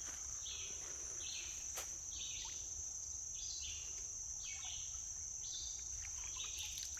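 Steady high-pitched drone of summer insects, with shorter chirps repeating about once a second. A single faint click comes about two seconds in.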